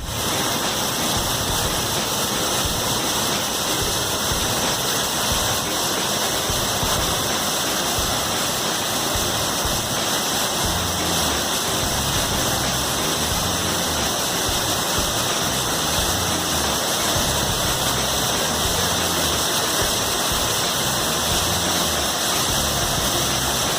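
Waterfall: water falling and splashing in a steady, loud rush. A low uneven rumble comes and goes from about halfway through.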